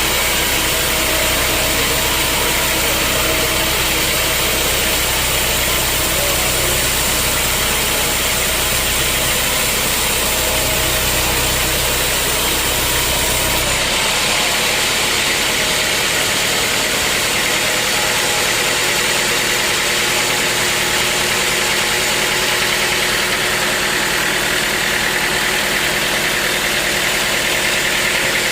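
Sawmill machinery running steadily with a loud mechanical drone; its deep low rumble drops away about halfway through while the higher noise carries on.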